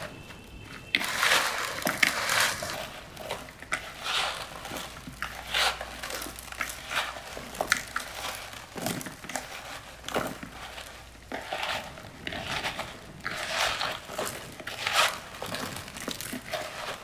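Irregular crinkling and rustling: many short scrapes and crackles in uneven succession, some much louder than others.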